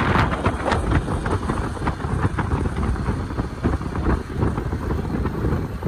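Wind buffeting the microphone on a moving moped, a loud, gusting rush with the moped and road noise underneath.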